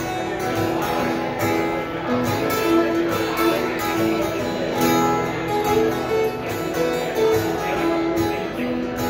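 Acoustic bluegrass band playing an instrumental passage: banjo and strummed acoustic guitars, with a lead line of held notes over them.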